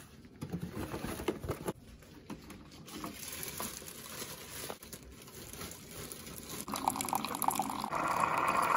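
A coffee pod is taken from its box and loaded into a single-serve pod coffee maker, with scattered light clicks and rustles. About seven seconds in the machine starts brewing, and near the end coffee streams loudly into a ceramic mug.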